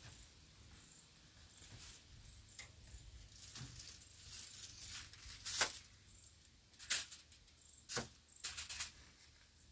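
Cooking-handling sounds at a charcoal grill: aluminium foil rustling and crinkling, and a few sharp clicks of metal tongs against the grill grate, with a quick run of clicks near the end.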